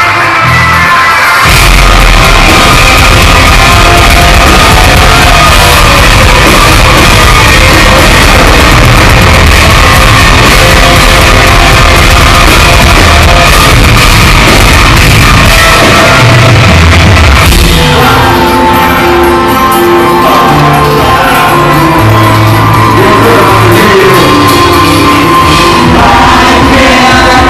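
Live deathcore band playing a song: distorted electric guitars, bass and drums with shouted, screamed vocals, loud throughout. About two-thirds of the way through the riff changes and clear held guitar notes come through.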